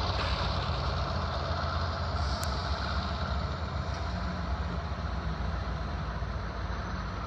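Diesel freight locomotive idling, a steady low rumble.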